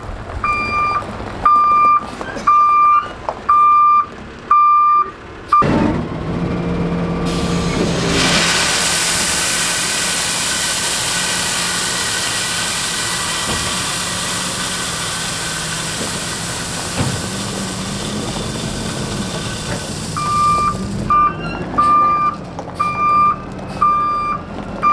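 Kenworth T880 tri-axle dump truck's reverse alarm beeping steadily, about four beeps every three seconds, then the engine pulls and washed #9 limestone pours from the partly opened tailgate in a steady rushing hiss for about twelve seconds. The reverse alarm starts beeping again near the end.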